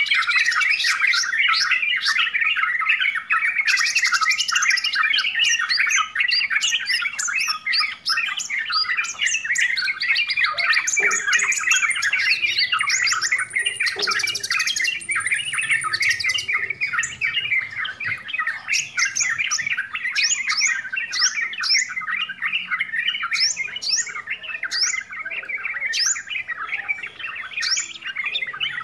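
Yellow-vented bulbul (trucukan) chattering busily and without a break, a dense stream of bubbling notes with frequent quick rising notes above them.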